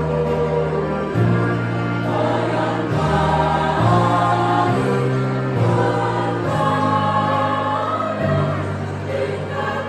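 Choir singing over an accompaniment whose low notes are held and change every second or so.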